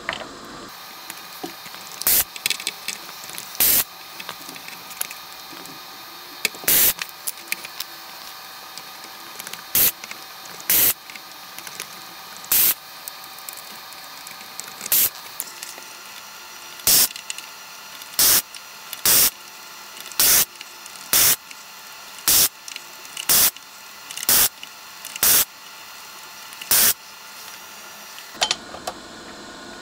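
Short hissing suction bursts from a vacuum desoldering tool clearing solder from the potentiometer pins on a circuit board, about seventeen bursts, coming roughly once a second in the second half.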